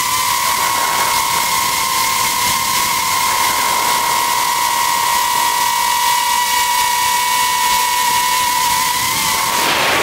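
F450 quadcopter's motors and propellers whining at a steady pitch over a constant rushing hiss as the craft descends; the pitch wavers and dips near the end.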